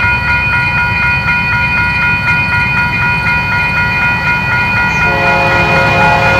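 Approaching freight train's diesel locomotives giving a low rumble under high ringing tones that pulse about three times a second. About five seconds in, the locomotive's air horn starts, a chord of several notes held steady.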